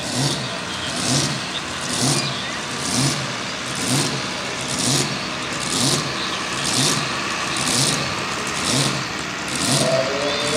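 Supercharged engine of a mini rod pulling tractor idling at the starting line, revved in short regular blips about once a second.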